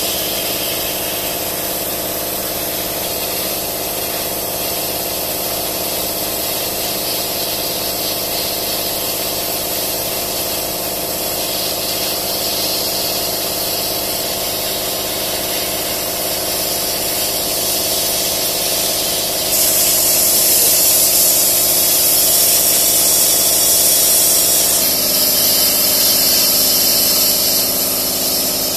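150 W CO2 laser cutting machine running while it cuts wood: a steady hum of fans and pumps with an airy hiss. The hiss grows louder for a few seconds about two-thirds of the way through, and a low steady tone joins near the end.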